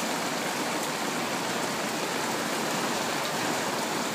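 Heavy rain falling steadily, an even hiss of downpour with no letup.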